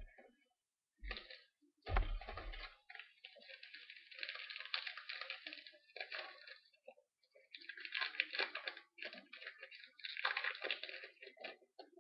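Trading-card packs and cards being handled: crinkling, rustling and crackling in irregular bursts, with a heavier thump about two seconds in.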